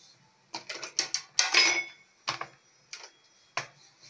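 Wooden rolling pin knocking and rattling against a wooden rolling board while paratha dough is rolled out: a quick run of clacks starting about half a second in, then a few single knocks spaced well apart.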